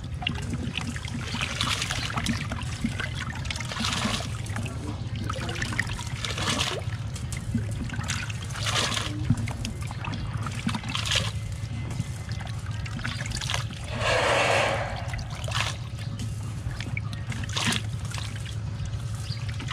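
Water splashing and trickling in a muddy fish tank where a plastic bucket is dipped, with a splash every second or two and a longer pouring rush about three-quarters of the way through. A steady low hum runs underneath.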